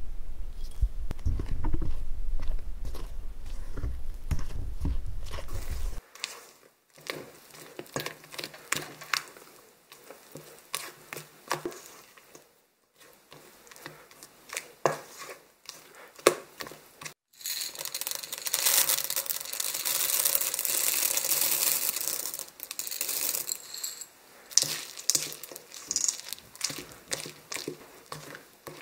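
Spatula stirring chocolate muffin batter in a metal bowl: a low rumble at first, then scattered scrapes and wet squelching strokes, with a denser, louder stretch of mixing in the middle. The sound breaks off sharply a few times between separate stretches.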